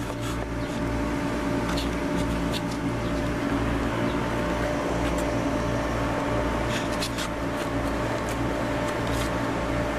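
Steady mechanical hum with a low rumble and a few fixed whining tones, like a running machine or air-conditioning unit, with scattered light clicks from the camera being handled.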